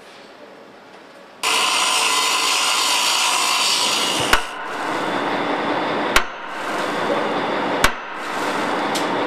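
Cutting torch hissing steadily as it cuts into the metal of a truck, starting suddenly about a second and a half in. A sharp click comes about every two seconds, with the hiss dipping briefly after each.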